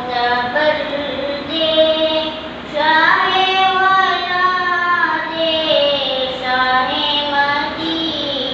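A young boy singing a naat, an Urdu-Punjabi devotional poem in praise of the Prophet, solo without instruments, in long held notes that bend and glide in pitch.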